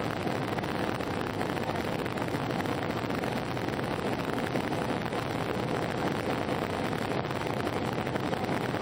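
Steady cabin noise of an Airbus A319 airliner in flight on approach: a constant rush of engine and airflow noise heard from inside the cabin.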